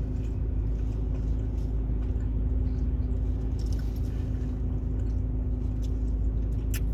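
Steady low hum and rumble of a running car heard inside its closed cabin, with faint chewing and a brief crackle near the end.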